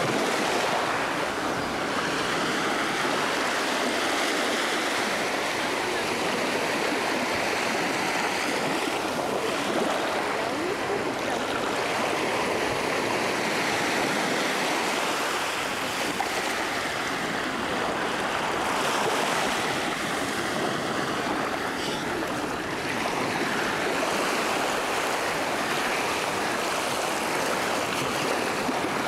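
Small waves breaking and washing up a sandy beach at high tide, a steady rushing wash of surf.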